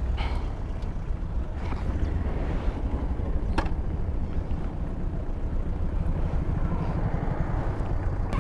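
Yamaha R1's crossplane inline-four engine idling with a low, steady, pulsing rumble, with a few light clicks.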